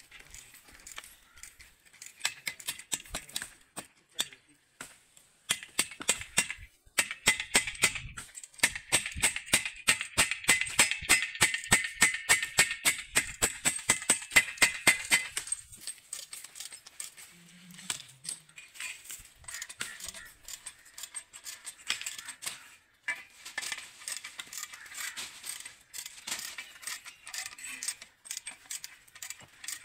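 Steel hammer striking a bolt through a steel angle-iron bracket into a wall, a fast steady run of sharp metallic blows at about four a second for some nine seconds. Afterwards lighter, scattered metal clinks of a spanner working a nut on the bracket.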